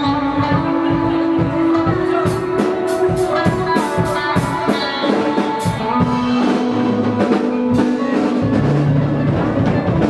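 Live rock band playing: a drum kit with a quick run of sharp drum and cymbal hits in the middle, over held guitar and bass notes.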